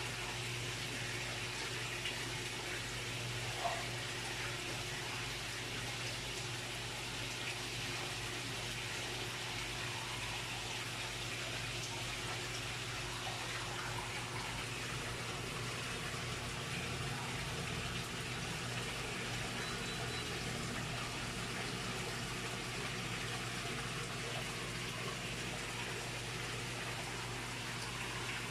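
Steady rush of running water in a fish pond, such as a filter return splashing in, with a low steady hum beneath it. There are a couple of light taps about two and four seconds in.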